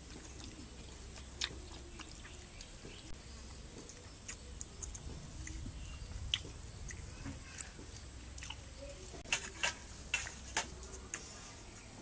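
People eating by hand from steel plates: quiet chewing and scattered light clicks, with a cluster of four sharper clicks near the end, over a faint steady high tone.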